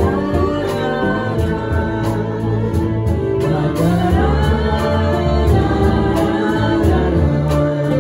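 Live ensemble of several voices singing together over strings (violins, cello, upright bass), electric guitar and a drum kit keeping a steady beat.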